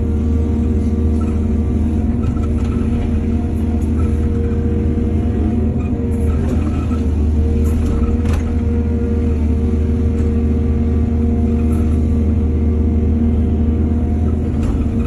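Excavator's diesel engine running steadily, with a few faint knocks.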